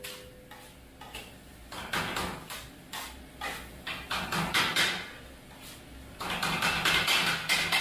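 Kottu roti being chopped on a flat-top griddle with metal blades: irregular clanking metal strikes, sparse at first, then a fast, dense run of clatter from about six seconds in.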